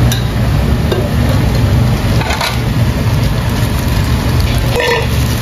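Steady low rumble of a busy food-stall kitchen, with a couple of light clinks of metal kitchenware about two and a half seconds in and near the end.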